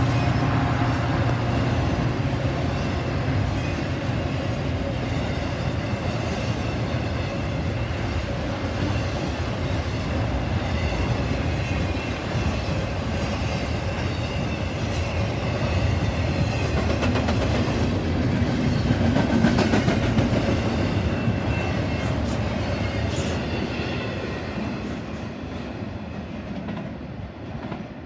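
Intermodal freight train of trailer and container flatcars rolling past, a steady noise of wheels on rails that fades away over the last few seconds as the train moves off.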